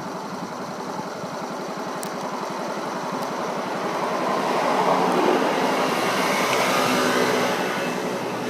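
Small 1969 Honda Monkey single-cylinder four-stroke engine running steadily, growing louder toward the middle and then easing off.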